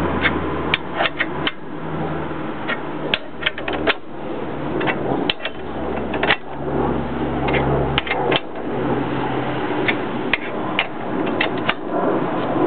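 Metal hand tools clicking and clinking irregularly during repair work on a Jeep's front axle, over a low steady mechanical hum.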